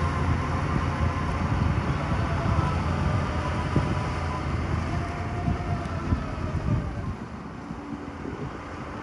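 Heavy diesel engine of earthmoving machinery running, with scattered knocks and clanks over it. The engine sound drops in level about seven seconds in.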